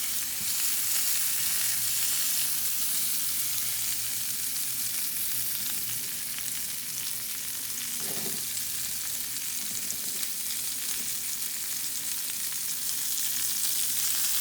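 Cauliflower steaks frying in a pan, a steady, even sizzle.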